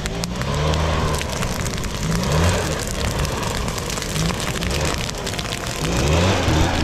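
Two-stroke engine of a Stihl backpack blower running hard and revving up in several short blips while its blast is turned on a grass fire. Dense hiss and small crackles from the burning dry grass run underneath.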